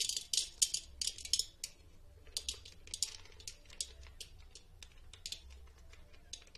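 Crinkling of an Act II popcorn packet handled and opened by hand: a dense run of sharp crackles for about the first second and a half, then scattered crackles.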